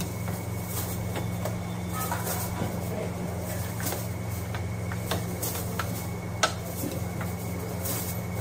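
Busy street food stall ambience: a steady low hum under scattered clinks and knocks of steel ladles against serving pots, with one louder knock about six seconds in.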